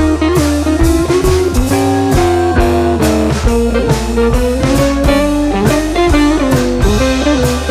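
Background music: a guitar melody over a steady drum-kit beat, in a blues-rock style.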